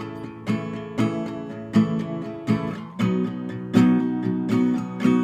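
Acoustic guitar strumming chords in a steady rhythm, each stroke ringing on, with no singing.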